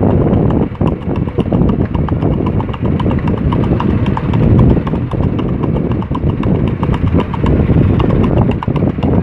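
Hooves of a Mangalarga Marchador colt striking asphalt in the marcha picada, a four-beat lateral gait, as a quick, even clip-clop over a steady low rumble.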